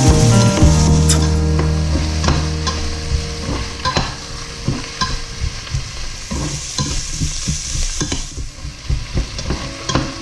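Vegetables sautéing in hot oil in a stainless steel pot, sizzling, while a slotted metal spatula stirs them, scraping and knocking against the pot many times.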